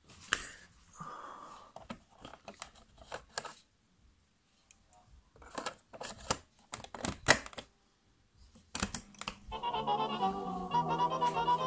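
Plastic clicks and clunks as a cassette is handled and loaded into a cassette player's door and the door and keys are worked. About nine and a half seconds in, the tape starts playing Romanian folk music led by accordion.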